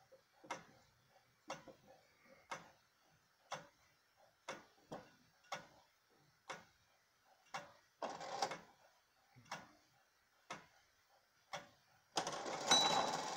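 Gideon Roberts wooden-movement tall case clock ticking about once a second. Near the end, as the minute hand reaches the hour, the strike train starts with a whir and the bell rings its first blows of the hour.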